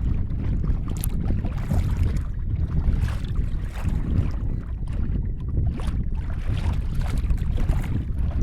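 Wind buffeting the microphone in a steady low rumble, with water lapping and splashing against a kayak hull in short irregular bursts.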